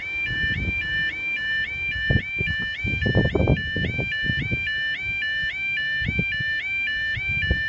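UK automatic half-barrier level crossing audible warning alarm sounding continuously as a rapid, repeating two-tone warble, with the barriers down. Irregular low rumbling bursts on the microphone come and go underneath.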